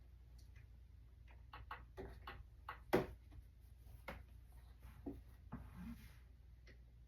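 Light clicks and knocks of objects being handled, the sharpest about three seconds in, with a short rustle near six seconds.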